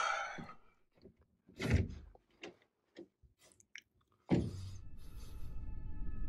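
A few soft handling knocks and rustles, one a little louder about a second and a half in, then background music comes in about four seconds in with sustained tones over a low bass.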